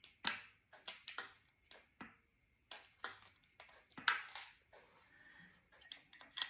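Irregular metallic clicks and clacks as a distributor is handled and turned in its bore in the engine block, with the loudest knock about four seconds in.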